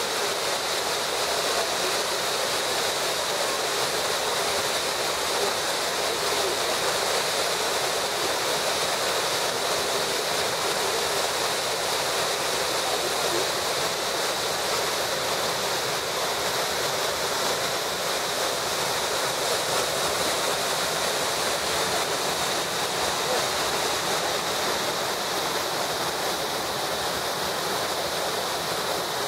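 Waterfall running at full flow, swollen brown water pouring down stepped rock with a steady, unbroken rushing.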